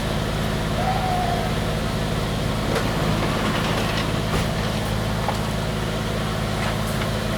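Steady low drone of an idling engine, with a few light clicks and knocks over it.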